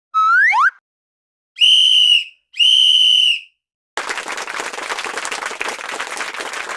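A short rising whistle glide, then two steady, shrill whistle blasts of under a second each. About four seconds in comes a burst of applause-like crowd noise that lasts roughly three seconds.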